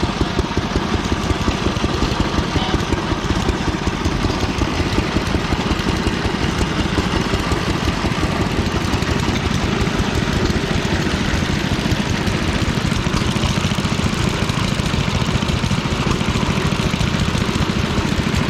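An engine idling steadily with a fast, even firing rhythm.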